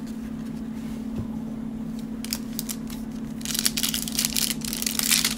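Wrapper of a Panini Prizm cello pack of trading cards crinkling and tearing as it is ripped open by hand. It starts as scattered crackles about two seconds in and grows into dense crinkling over the last two seconds, over a steady low hum.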